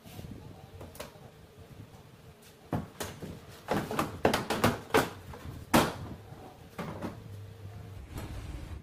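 Plastic rear bumper cover of a Nissan Sentra being pried and pulled off the car: its retaining clips snap and the cover knocks and rattles. There are scattered clicks, then a quick run of loud snaps and knocks in the middle.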